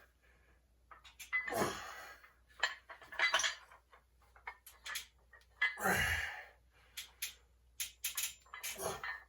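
Metal gym weights clinking and clanking in irregular knocks, with a heavier thud about six seconds in.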